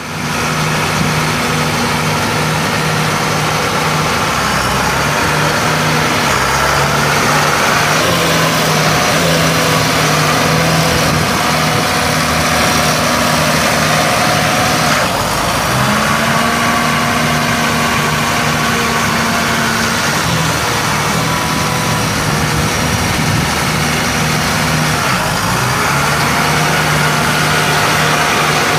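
Allis-Chalmers 8030 tractor's 7.0-litre six-cylinder diesel engine running, its engine speed stepping up and down several times.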